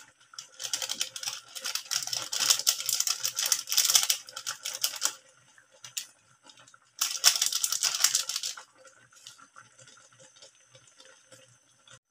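Plastic seasoning sachet being shaken and crinkled: two bursts of rapid crackling clicks, the first about four seconds long, the second about a second and a half, with fainter crackle dying away near the end.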